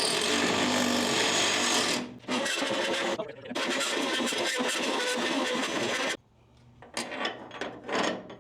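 Electric drill fitted with a die-grinder bit, grinding into a steel plate to elongate a bolt hole. It runs in three bursts, a long one, a short one and another long one, then stops about six seconds in, and a few light knocks follow.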